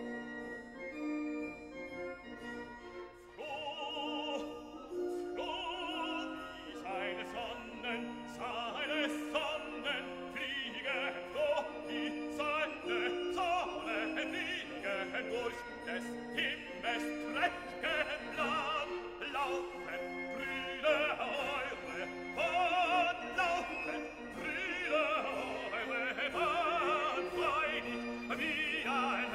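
Classical background music. About three seconds in, an operatic voice with a wide vibrato comes in over an accompaniment of steady held notes, and it sings on to the end.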